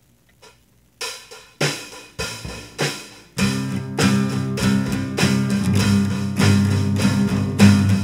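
Band music starting: a last faint count-in tick, then four accented hits about half a second apart, then the full band with guitar and drums coming in about three and a half seconds in.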